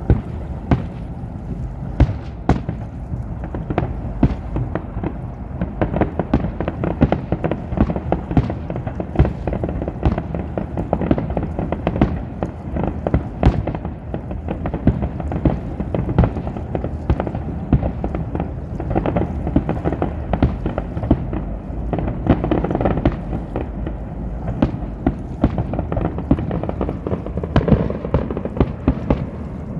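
Aerial fireworks display: shells bursting in quick succession, a steady run of sharp booms and crackles, several a second, over a continuous low rumble.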